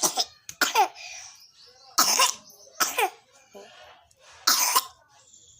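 Repeated coughing, about five coughs spaced a second or so apart, from a cough and cold.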